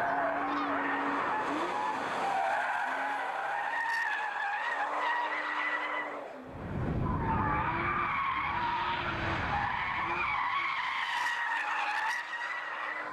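Porsche Boxster S 3.2 flat-six being driven hard on a race track, its tyres squealing and wavering in pitch through the corners over the engine note. Just after six seconds in the squeal briefly drops away and a heavy low rumble from the car takes over for a few seconds before the squealing returns.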